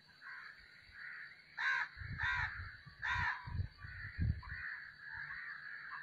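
Black francolin calling: a run of short call notes, the three loudest coming in quick succession about two seconds in, with a few low thumps beneath them.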